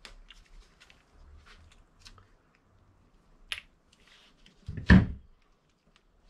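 Hand tools being handled during bike work: light clicks and taps, a sharp click, then one loud thunk about five seconds in.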